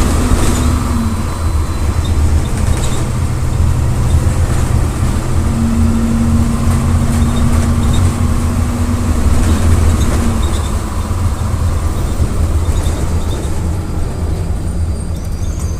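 The VolksBus 17-230 EOD city bus's MWM 6.12 TCE six-cylinder turbodiesel running under way. A steady hum comes in about five seconds in and stops about ten seconds in.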